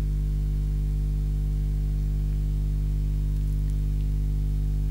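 Steady electrical mains hum, a low buzz with a stack of overtones, carried on the recording's audio line.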